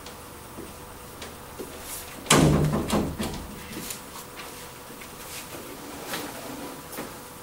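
A door bangs shut about two seconds in, followed by a few faint knocks.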